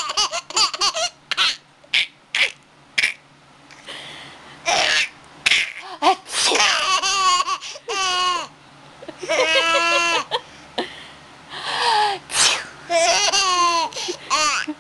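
A baby laughing in repeated high-pitched bouts, with a fast rhythmic run of laughs about nine to ten seconds in.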